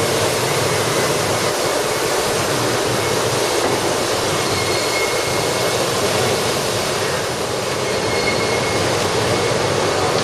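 Steady, loud machine noise, an even rumble and hiss, with a faint high whine that comes and goes.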